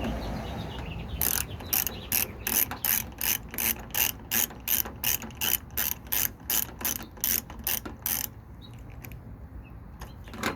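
Ratcheting tool with a T30 Torx bit clicking rapidly and evenly, about four clicks a second for some seven seconds, as it backs out the door handle's retaining screw.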